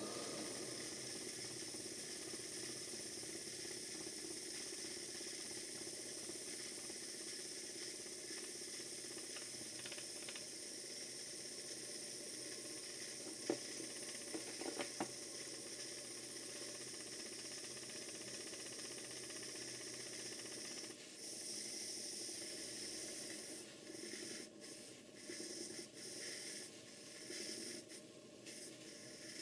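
Basil Harley-designed twin oscillating cylinder model steam engine running on live steam, a faint, steady hiss with a couple of sharp ticks about halfway through. About two-thirds of the way in the sound drops and turns uneven, coming and going.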